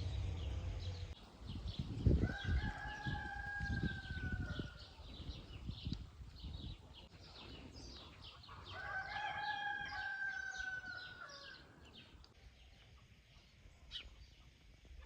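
A rooster crowing twice, each crow a long held call of two to three seconds, the second starting about six seconds after the first. Small birds chirp rapidly underneath until near the end.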